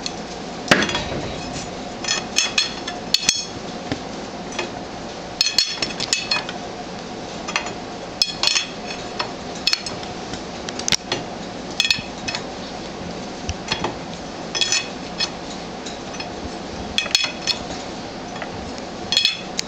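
A steel spanner wrench clinks and knocks against the threaded barrel end of an M-70 screw oil press as it is turned in and tightened. The sharp metal clinks come in small clusters every second or two, each time the wrench is pulled and refitted.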